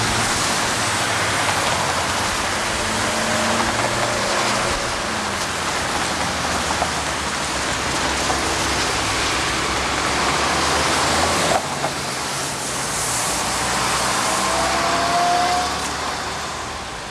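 Road traffic at a city crossing: cars passing over a wet road with a steady hiss of tyres, and a short rising whine near the end.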